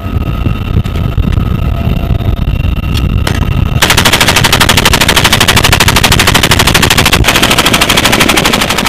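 Steady low rumble of helicopter cabin noise. About four seconds in, a door-mounted GAU-21 (FN M3M) .50 caliber machine gun opens up in one long burst of rapid, evenly spaced shots.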